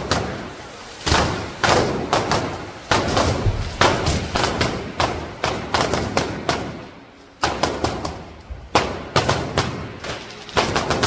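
Fireworks exploding in an irregular string of sharp bangs, often two or three close together, each with a short echoing tail, with a brief lull a little past the middle.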